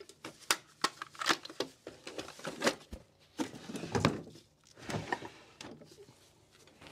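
Handling clatter in a tool cabinet: metal tools and a small metal case clinking, then the knocks and slide of one drawer being shut and the next pulled open, with loose drill bits rattling. It comes as an uneven run of sharp clicks and knocks.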